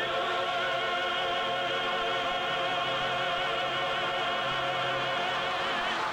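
Sung voices holding the long final note of a slow hymn, the sustained chord wavering with vibrato. About six seconds in it gives way to a different piece of music.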